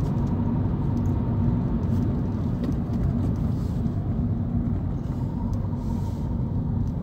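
Road and engine noise inside a moving car's cabin: a steady rumble with a low, even hum.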